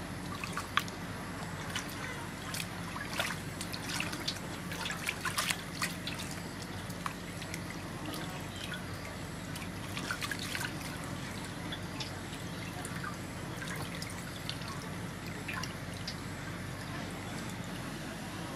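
Water splashing and dripping in a metal basin as hands rub and rinse a slab of raw pork, with irregular small splashes that come thickest in the first few seconds and again about ten seconds in.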